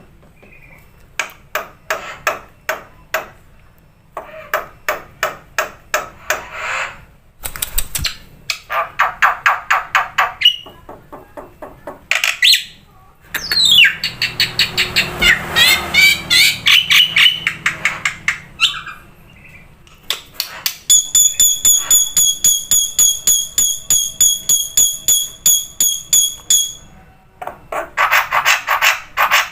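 Songbird singing in fast strings of short repeated notes separated by brief pauses, with a denser chatter around the middle and a long run of clear, evenly pulsed high notes in the later part.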